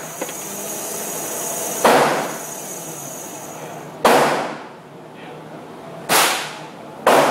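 Beretta 92FS Inox 9mm pistol fired four times in slow single shots, each a sharp crack with a short echoing tail. The first three come about two seconds apart, the last about a second after the third.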